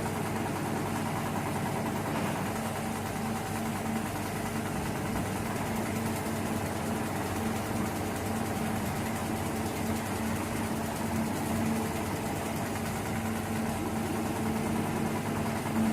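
HEMS 250 CNC frame-type programmable pattern sewing machine running steadily, with a rapid, even mechanical rhythm and a constant hum.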